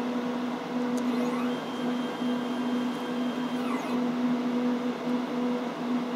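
Stepper motors of a homemade CNC plasma-cutter gantry driving the torch head, with a whine that rises in pitch about a second and a half in, holds steady, and falls away again near the four-second mark as the axis speeds up and slows down. A steady low hum runs underneath.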